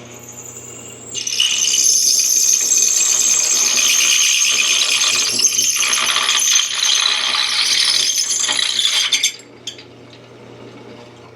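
Drill press boring a KNKUT bit through a heavy steel bracket: a loud, high-pitched cutting screech starts about a second in, holds for about eight seconds and cuts off near the end, over the steady hum of the drill press motor.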